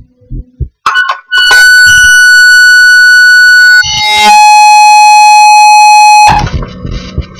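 Very loud electronic beeping from a Hackintosh's audio output at bootup: a steady high tone for about two and a half seconds, then a lower steady tone for about two seconds that cuts off suddenly. The beeping comes from a faulty VoodooHDA audio driver selected during the OS X install.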